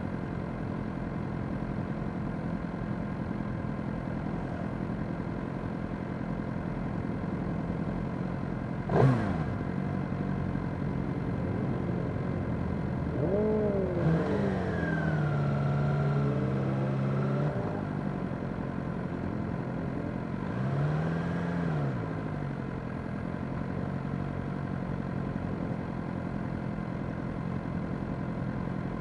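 Motorcycle engines idling in slow, stop-start traffic. A sharp throttle blip comes about nine seconds in and is the loudest moment. Revs rise and fall for a few seconds in the middle, and a shorter blip follows a few seconds later.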